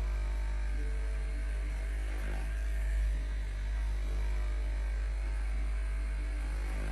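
A steady low hum, with faint held tones above it.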